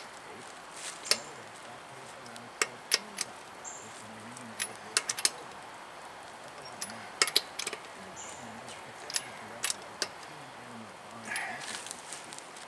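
Irregular metal clicks and clinks of a lug wrench and socket on a car wheel's lug nuts as the wheel is fitted and the nuts are run down by hand.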